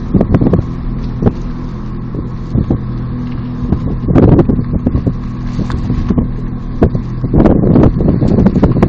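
Car engine running steadily at low speed, with gusts of wind rumbling on the microphone about four seconds in and again near the end.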